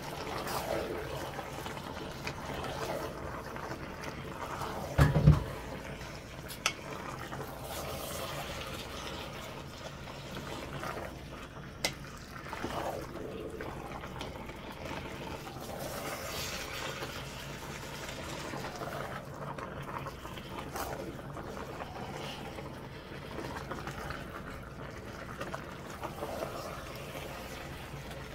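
Water running and filling into the emptied diced-tomatoes container as it is rinsed out, the water sloshing and trickling. A loud thump comes about five seconds in, and there are a couple of sharp clicks.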